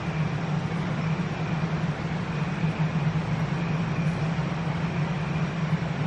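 Spirit box static as the device sweeps through radio stations: a steady hiss over a low, choppy hum, with no voice coming through.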